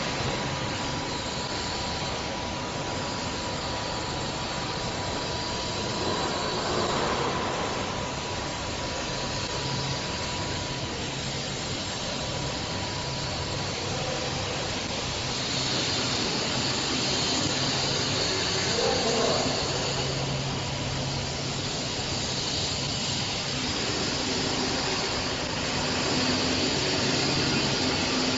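Steady hiss with a low hum of machinery running in the background.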